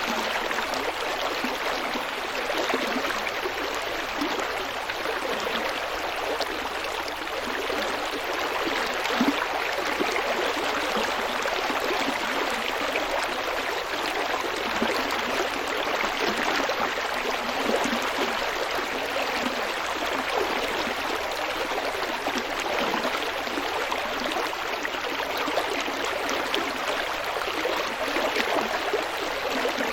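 A stream flowing over rocks: a steady, even rush of water with small gurgles.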